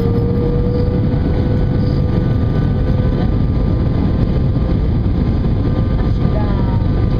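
Airbus A320 cabin noise: the steady low rush of engines and airflow heard from inside the passenger cabin, with a steady engine whine running through it.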